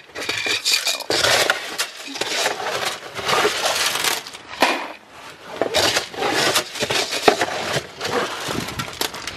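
Feed pellets rattling and sliding against plastic as a plastic scoop digs into them in a plastic feed bin, in several bursts with short pauses, with sharp clicks of the scoop and bins knocking.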